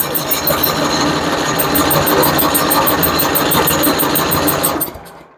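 8 hp Tecumseh engine on a Toro 828LE snowblower turning over on a start attempt, with fuel sprayed into the intake and the choke set. It runs as a steady mechanical churn with a fast regular tick, then dies away about five seconds in without starting.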